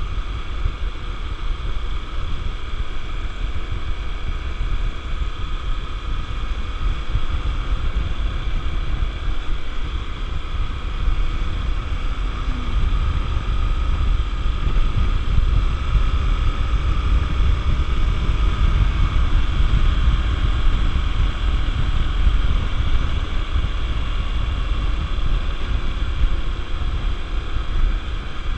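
Honda XR 250 Tornado single-cylinder engine running steadily while the bike is ridden, with wind rumbling on the microphone; it gets slightly louder about halfway through.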